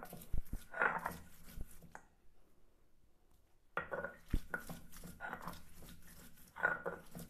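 Garlic cloves being ground to paste on a sil-batta: the grinding stone scraping over the stone slab in repeated strokes, with a few sharp knocks of stone on stone.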